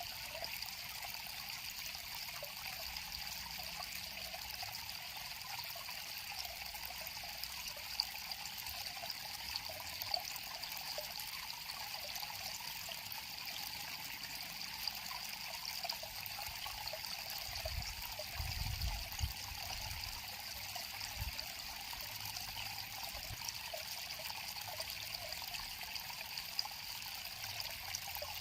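River water flowing steadily, with a brief low rumble about two-thirds of the way through.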